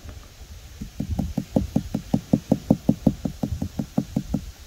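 Rapid, even tapping on windshield glass, about five taps a second for some three seconds starting about a second in. The tapping is done around a chip-repair kit's vacuum pedestal to help the air bubbles work out of the chip.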